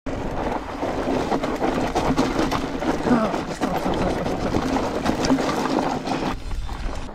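Trek Slash 8 mountain bike rolling down a steep, loose rocky trail: tyres crunching over gravel and stones and the bike rattling with constant clicks and knocks, thinning out a little near the end.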